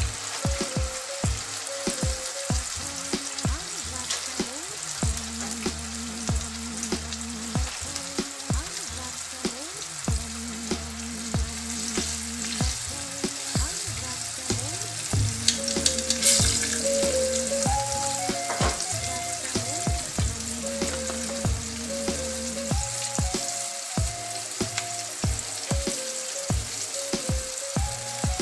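Breaded tilapia fillets frying in hot oil in a skillet, with a steady sizzle that flares louder briefly about halfway through.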